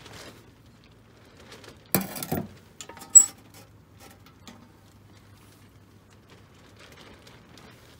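Metal handling sounds from a small homemade tin-can wood stove and a metal cooking pot: a short clatter about two seconds in, then a single sharp, ringing metallic clink. Between and after them there is only faint low-level noise.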